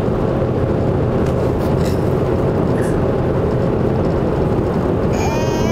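Steady road and engine noise inside a moving car's cabin. Near the end a toddler's high-pitched laugh starts, rising in pitch.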